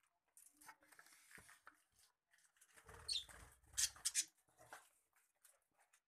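Budgerigars chirping: scattered short, high chirps and squeaks, loudest in a quick cluster of sharp calls about four seconds in, with a low rumble under them from about three seconds in.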